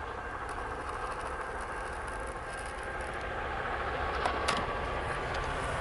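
Diesel-hauled grain train approaching, its vintage Clyde-EMD locomotives led by S-class S302 running with a steady low rumble that slowly grows louder. A faint thin steady tone sits over it, and there are two sharp clicks about four seconds in.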